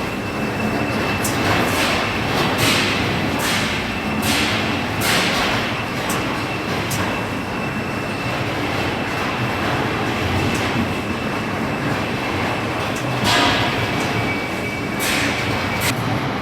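Gold trommel washing machine running: a steady mechanical rumble with sharp clanks, close together over the first few seconds, then only now and then.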